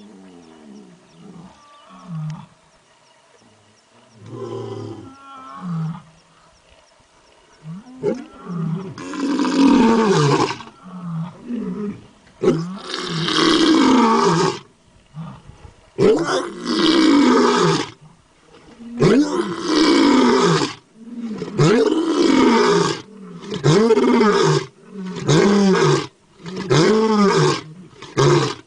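Tiger roaring: a few quieter moans and grunts at first, then a series of loud roars starting about a third of the way in, coming shorter and closer together toward the end.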